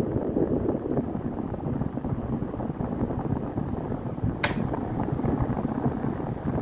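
National F-MN405 table fan with a 75-watt motor and 16-inch blades running, its air blast buffeting the microphone in a steady, rough rumble of wind noise. A single sharp click comes about four and a half seconds in.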